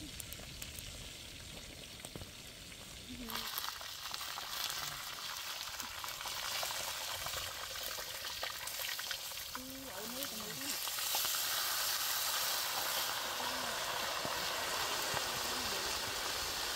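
A whole chicken and water spinach frying in a large wok, a dense sizzling hiss that starts suddenly about three seconds in and grows louder about eleven seconds in.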